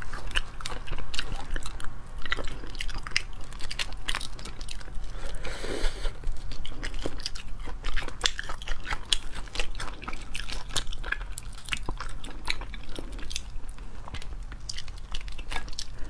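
Cooked crayfish shells cracking and crackling as they are pulled apart and peeled by hand, with biting and chewing; many small sharp crunches come irregularly throughout.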